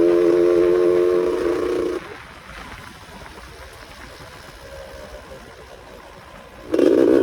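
Yamaha F1ZR two-stroke engine drone while riding: a loud, steady pitched hum. It cuts off suddenly about two seconds in, leaving a low hiss, and comes back just as suddenly near the end.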